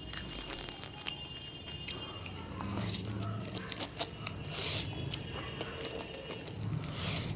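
Close-miked eating: a woman slurping up a big mouthful of saucy black bean noodles and chewing, with small wet clicks of chopsticks and lips. Short, loud slurps come about four and a half seconds in and again near the end.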